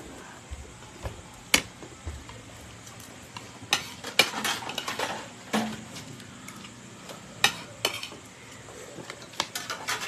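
Scattered clinks, taps and short scrapes of dishes and utensils on a dinner table during a meal.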